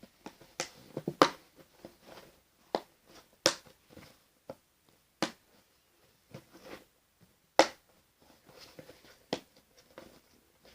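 Plastic slime container's lid being pressed and snapped shut, a series of sharp, irregular clicks with faint handling rustle between them.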